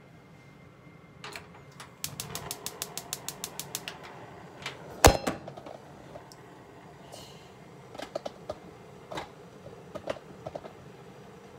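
Gas stove burner's igniter clicking rapidly, about seven clicks a second for some two seconds, as the burner is lit. A loud sharp click follows, then a few scattered lighter clicks and knocks.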